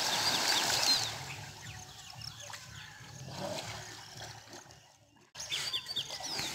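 Water splashing as a person plunges into a large open well, dying away within about a second. Then faint bird chirps sound over the quiet water, and the sound cuts out briefly about five seconds in.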